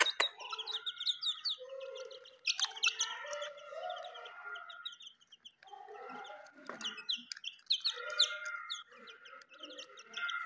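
Young desi chicks cheeping: a dense, continuous run of short high peeps from the whole brood. A sharp knock comes right at the start.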